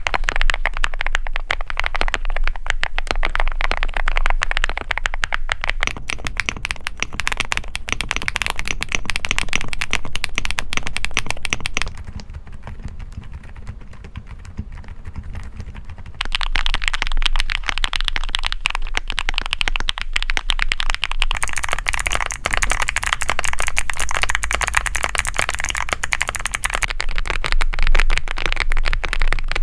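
Fast typing on a series of custom mechanical keyboards with different switches, changing every few seconds. Near the middle comes a much quieter, muted stretch typical of silent switches. Later the keystrokes turn brighter and sharper.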